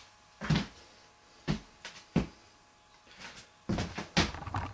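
Several short, sharp knocks and clicks of objects being handled, spaced out at first, then a quicker run of them near the end.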